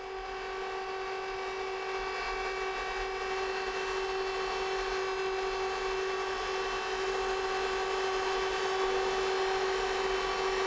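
A steady, unchanging pitched hum with a stack of overtones, slowly growing louder.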